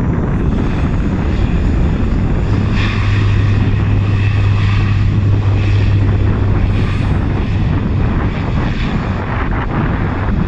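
Bombardier Dash 8 Q400 turboprop rolling along the runway, its two six-bladed propellers giving a steady low drone that grows stronger for a few seconds in the middle, over a constant engine rush.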